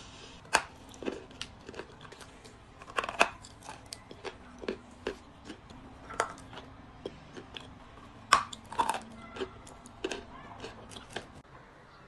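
Close-up crunching as a dry lump of white edible clay is bitten and chewed. The crunches come irregularly, with the loudest bites about half a second, three seconds and eight and a half seconds in, and stop shortly before the end.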